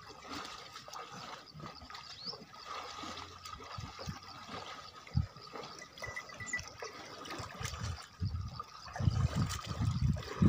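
Water buffaloes wading through shallow muddy water, with trickling and sloshing and the odd low splash. The sloshing gets heavier near the end as a buffalo walks through the water up close.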